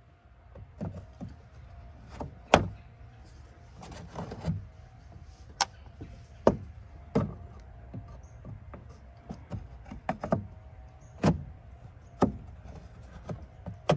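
Screwdriver turning and prying loose the plastic quarter-turn clips of a car's engine-compartment cover panel: scattered sharp clicks and knocks of plastic and metal, about a dozen, irregularly spaced.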